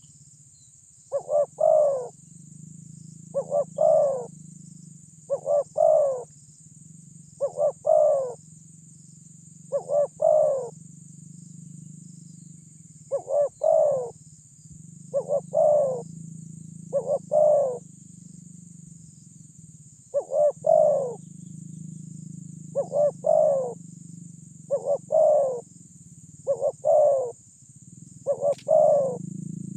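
Spotted dove (terkukur) giving its loud territorial coo over and over. Each phrase is a quick double note followed by a longer falling coo, repeated every couple of seconds, with two short pauses. A steady low hum fills the gaps between calls, and a faint high hiss runs throughout.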